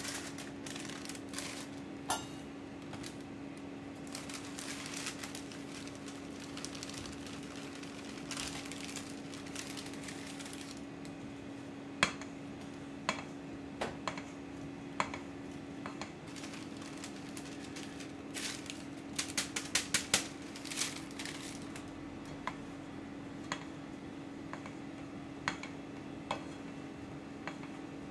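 Spatula scraping and tapping against a stainless steel mixing bowl while flour is folded into whipped egg batter: scattered sharp clicks, with a quick run of taps a little after the middle, over a steady hum.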